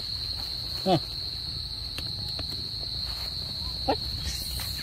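Night insects keep up a steady, high-pitched drone. A voice gives a short call about a second in and again near four seconds, over low rustling of footsteps and camera handling.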